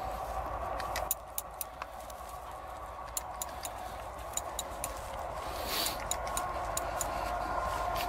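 Footsteps crunching in dry grass stubble: scattered light clicks in small clusters, with a brief rustle about six seconds in, over a faint steady hum.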